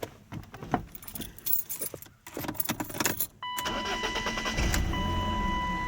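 Keys jangling and clicking in the ignition, then a steady high tone sets in and the BMW 318is's M42 1.8-litre four-cylinder starts about four and a half seconds in and settles into a steady idle. It runs quietly: the lifter tick, caused by an air leak from a piece of old oil pan gasket left on the block, is fixed.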